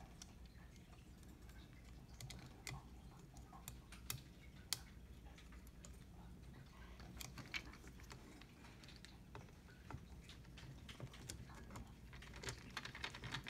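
Faint, scattered clicks and taps of small parts being handled on a Triton ATM's receipt printer as it is reassembled, coming more often near the end, over a faint steady low hum.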